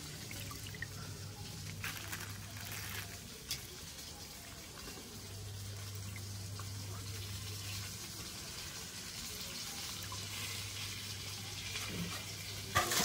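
Water dripping and splashing in a steel bowl as raw chicken liver and gizzard pieces are rinsed and lifted out, with a few small knocks. A low hum comes and goes underneath.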